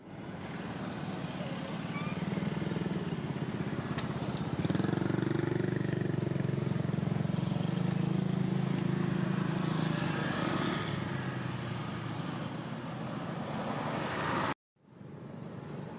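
Road traffic: a motor vehicle engine running close by, swelling louder for a while and then easing off. The sound cuts out abruptly near the end and comes back quieter.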